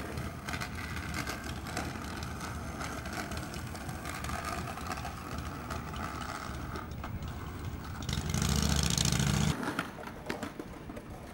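Skateboard wheels rolling on pavement and grinding along a concrete ledge, over steady street traffic noise. A louder stretch of rolling and scraping about eight seconds in stops abruptly.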